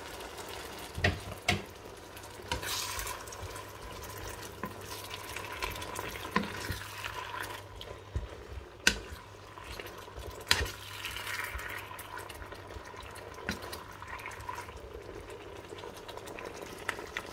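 Pork and milk sauce sizzling gently in a frying pan while a wooden spatula stirs it. The spatula knocks lightly against the pan now and then, with two sharper knocks a little past the middle.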